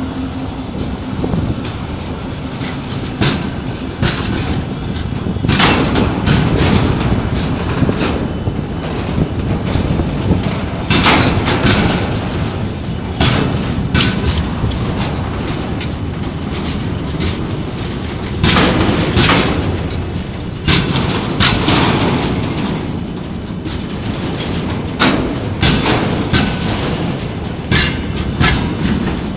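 ChME3 diesel-electric shunting locomotive running, a steady engine and rolling rumble under many irregular sharp clanks and knocks, some coming in quick clusters.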